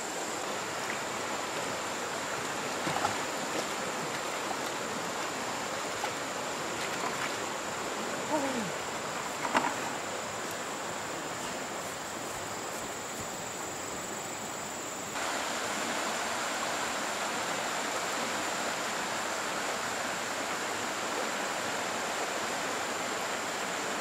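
Steady outdoor background hiss with a continuous high-pitched insect drone over it. A few faint clicks and a short falling call come about eight to ten seconds in, and the background hiss changes abruptly about fifteen seconds in.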